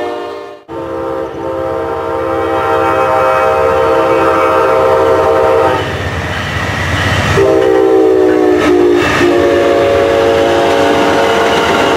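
Amtrak passenger locomotive's multi-chime air horn blowing as the train comes through: a long blast, a short one, then another long one, over the rumble and clickety-clack of the passing train. The sound drops out briefly about half a second in, just before the horn starts.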